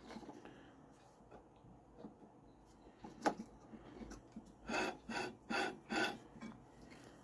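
A grinding wheel scraping against the marker-painted bevel of a bowl gouge held in a fingernail-grind jig, in about five short strokes after a single click. The wheel is rubbing the marker off the bevel to show whether the jig is set at the right angle.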